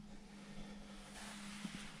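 Quiet background inside a parked truck cab: faint hiss and a steady low hum, with a soft click near the end.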